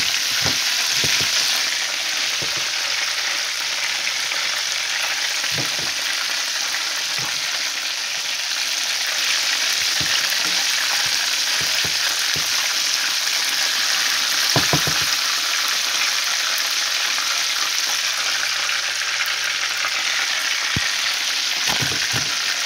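Flour-coated chicken drumsticks frying in hot oil in a pan on the stovetop: a steady crackling sizzle, with a few brief knocks from utensils or the pan.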